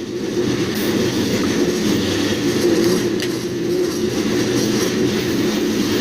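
Freight train rolling along, heard from aboard one of its cars: a steady running noise with a constant low droning tone.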